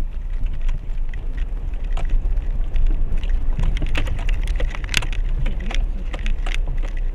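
Renault Duster driving slowly down a rough, stony mountain road, heard inside the cabin: a steady low rumble of tyres and engine with many small irregular clicks, knocks and rattles from stones and the car's body.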